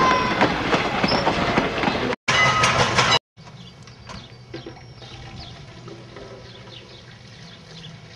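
Passenger train rolling past, its wheels clattering over rail joints with a brief wheel squeal; the sound cuts off about three seconds in. After that comes much quieter, duller audio: a steady low hum with a few faint clanks.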